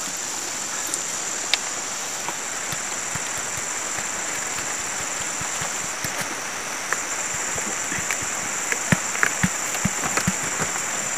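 Steady high-pitched drone of jungle insects over a constant rushing hiss. Scattered small clicks and taps come more often in the second half.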